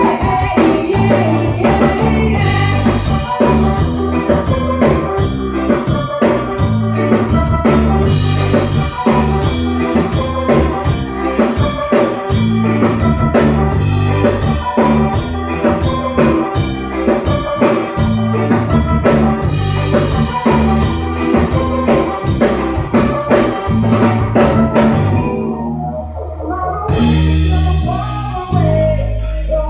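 Loud music with a steady drum-kit beat and a driving bass line. Near the end it drops out to a thinner sound for about two seconds before the full beat returns.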